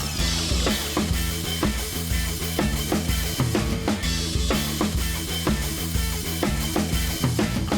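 Background music with a steady drum-kit beat: bass drum and snare over a bass line.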